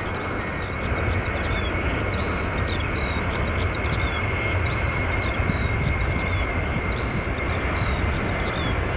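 Jet airliner's engines running steadily as it taxis, a low rumble with a thin steady whine, while small birds chirp over and over on top of it.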